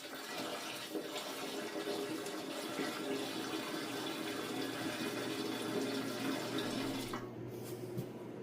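Liquid pouring steadily into a tractor's gas tank for a salt rust-removal soak. The stream gets quieter about seven seconds in.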